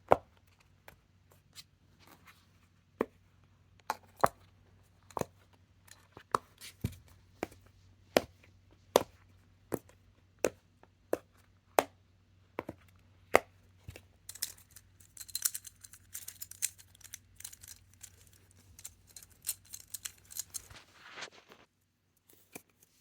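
Simple dimple fidget toy's silicone bubbles being pushed, giving sharp separate pops about once a second. From about two-thirds of the way in, a denser run of crackling and clicking lasts several seconds.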